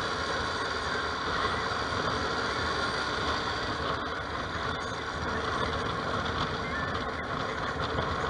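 Bumoto Regnum maxi-scooter running steadily on the move in traffic, its engine under a continuous rush of wind on the microphone.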